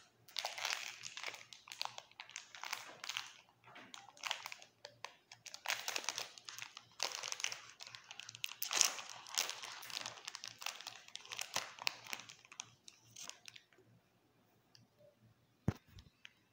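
A plastic biscuit wrapper crinkling as it is handled, in irregular crackles that die down about three-quarters of the way through. A single sharp knock near the end.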